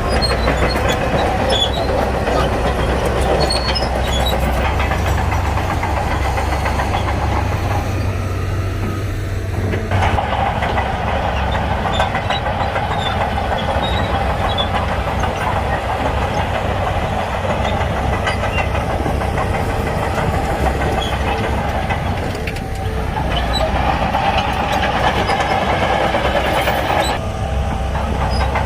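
Shantui crawler bulldozer's diesel engine working under load, with scattered clanks over the steady rumble; the engine note shifts a few times as the machine works.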